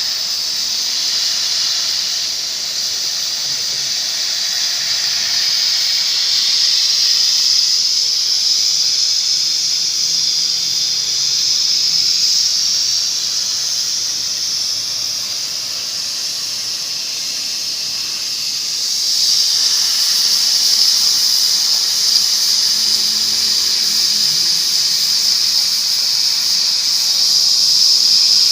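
Gas-flame torch of a CNC cutting machine hissing steadily as it heats and cuts a steel plate, getting louder about two-thirds of the way through.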